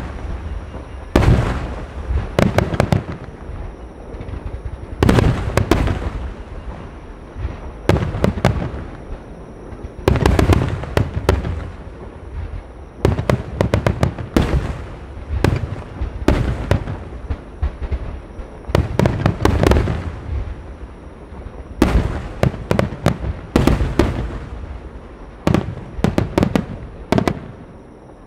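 Japanese star mine fireworks barrage: aerial shells bursting in quick clusters of sharp booms every second or two, each trailing off in a rolling echo.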